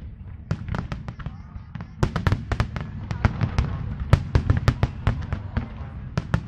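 Aerial fireworks bursting in rapid, irregular succession: many sharp bangs a second over a steady low rumble. The bangs are sparser at first and come thicker from about two seconds in.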